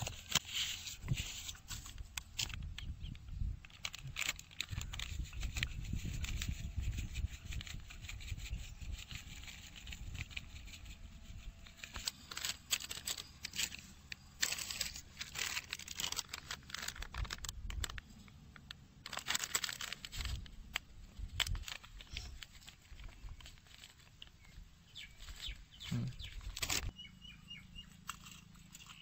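Scattered clicks, taps and rustles of hands spooning spice powders out of small plastic containers onto a steel plate, over a low, uneven rumble.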